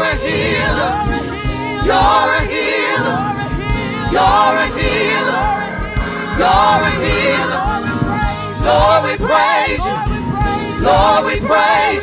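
Gospel praise team singing a worship song over instrumental backing: wavering, ornamented vocal runs in phrases about every two seconds above a steady beat.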